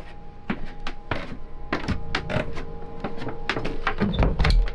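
Irregular knocks and clunks of footsteps and camera handling while walking down into a boat's lower cabin, with a heavy low thump near the end. A steady hum from a generator runs underneath.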